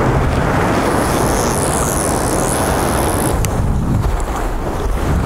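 Steady wind rumbling on the microphone over the wash of surf, a loud even noise heaviest in the low end.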